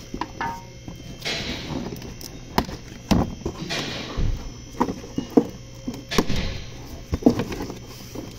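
Handling of car A/C evaporator coils: scattered sharp knocks and clicks, with a few short spells of rustling.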